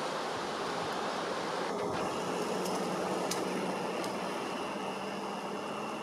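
Steady outdoor background hiss. A faint steady hum joins about two seconds in, with a few faint ticks around the middle.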